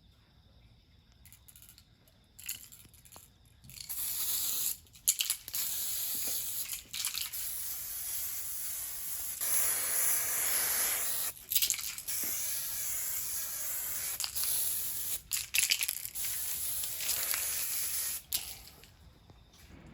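Aerosol spray-paint can hissing in long bursts, with several short breaks between passes.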